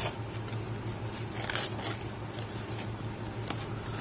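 A small cardboard box handled and turned over by hand: scattered short rustles and scrapes of cardboard, a cluster of them a second and a half in and another near the end.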